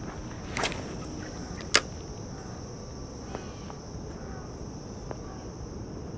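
Crickets chirring steadily in a high, even band. About half a second in there is a brief swish, and near two seconds in a single sharp click, the loudest sound, followed by a few light footsteps on pavement.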